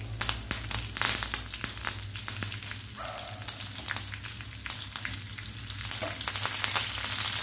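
Hot oil sizzling and crackling in a frying pan as fresh curry leaves go into a tempering of mustard seeds, cumin, garlic and dried red chillies. The sputter gets a little denser toward the end.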